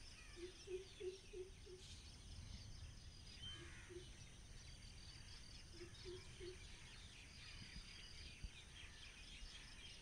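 Faint outdoor ambience of insects and birds chirping steadily. A low hooting call comes in short runs: five hoots near the start, two a little before four seconds in, and three about six seconds in.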